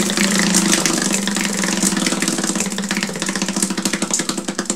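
Hand-spun prize wheel whirring round, its clicker ticking rapidly against the pegs, with the ticks gradually spacing out as the wheel slows, over a steady hum.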